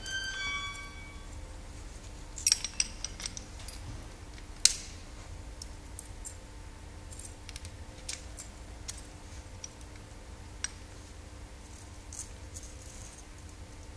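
Steel lifting hardware being handled: a remote-release hook-clamp and shackle clinking and clicking as they are fitted onto a crane hook. A short metallic ring at the start, a quick run of clacks a little after two seconds in, then a single sharp clack, followed by scattered lighter clicks.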